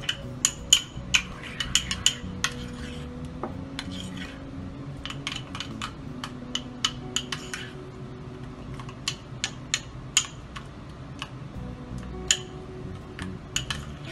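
A spoon clinking and scraping against a small bowl while stirring a thick mayonnaise-and-ketchup sauce, in quick, irregular taps with a few short pauses.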